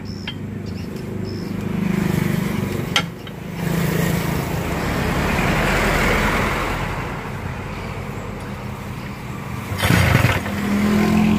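Evinrude 12 hp two-stroke outboard motor running unevenly on a test start, its speed swelling and sagging and nearly dying once about three seconds in before picking up again, with a short sharp burst near the end. The mechanic puts the faltering down to too little fuel getting through.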